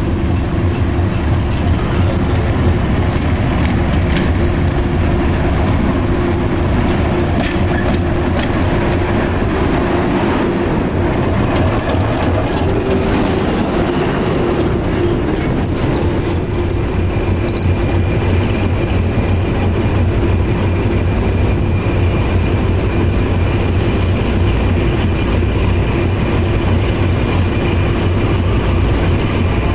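Diesel locomotive engine running steadily: a continuous deep throb with a steady hum over it. A higher whine joins about halfway through and holds.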